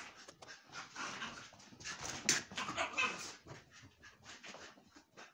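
Dogs panting hard in short irregular bursts as they tug at a plush toy in play.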